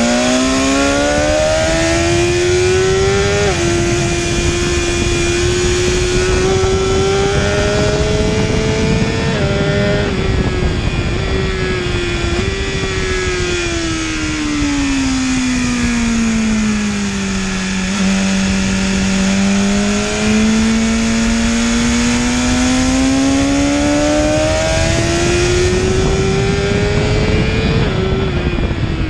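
2019 BMW S1000RR's inline-four engine, fitted with an Akrapovic exhaust, heard on board at speed: the revs climb hard with an upshift a few seconds in and another near ten seconds, ease off and fall for several seconds, then climb again to a shift near the end.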